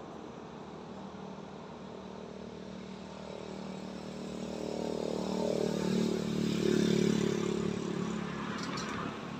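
A motor vehicle engine passing by, swelling from about three seconds in, loudest around six to seven seconds, then fading away, over a steady background hiss.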